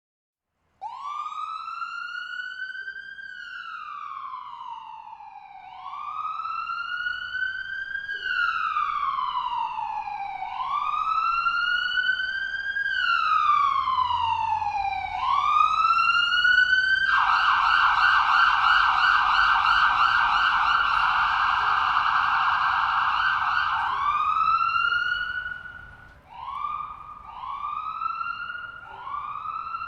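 Ambulance siren starting about a second in with a wail rising and falling roughly every two and a half seconds. After about seventeen seconds it switches to a rapid warble for several seconds, then goes back to shorter rising-and-falling sweeps.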